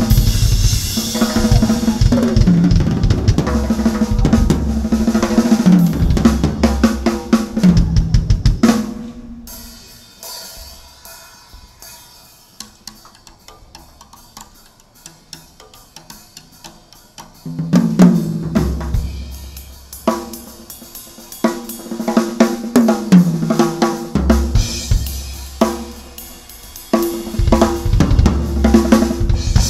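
Drum kit solo: fast, dense playing across toms, snare, bass drum and cymbals, dropping to a quiet passage of light sparse strokes about ten seconds in, then building back to full kit about seven seconds later.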